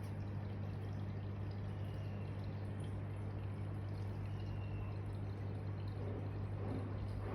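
Aquarium water trickling and splashing steadily over a low, steady hum.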